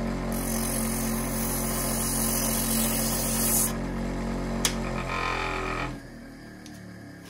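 Small bench motor with a spinning edge drum running steadily while a leather strap's edge is pressed against it, giving a loud hiss for the first few seconds. After the strap comes away there is a click, and the motor winds down and stops about six seconds in.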